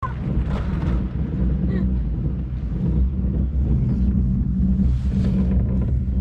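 Steady low hum and rumble inside a passenger ropeway cable car cabin as it runs along the cable.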